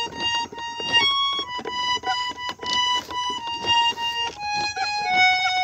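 Harmonium playing a melody of held, reedy notes that step from one pitch to the next, with quick sharp taps running through it. It is an instrumental interlude between the sung verses of a ragni.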